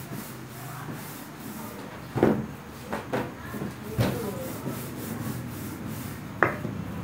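Wooden rolling pin rubbing back and forth over pizza dough on a floured table, with a few knocks of the pin and dough against the tabletop; the sharpest come about two seconds in and near the end.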